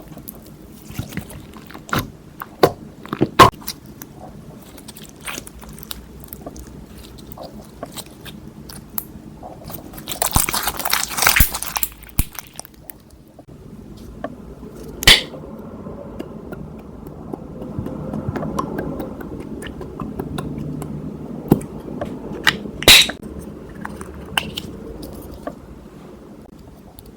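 Slime being squished and kneaded by hand: sticky clicking and small wet pops, with a longer crackling stretch about ten seconds in and two loud sharp pops, about fifteen and twenty-three seconds in.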